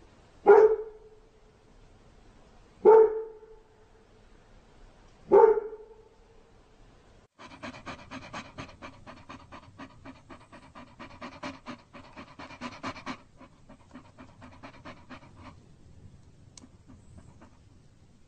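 A dog barks three times, about two and a half seconds apart, then pants quickly for several seconds, fading out near the end.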